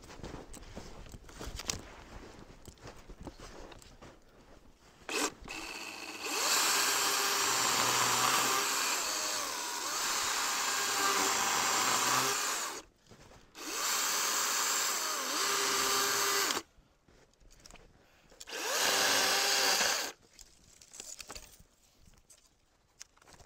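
DeWalt battery-powered chainsaw with a fresh chain cutting through a maple trunk in three runs: a long cut of about six seconds, a shorter one of about three, then a brief one of under two. The electric motor's whine wavers as the chain bites, and the saw falls silent between cuts, with no engine idling.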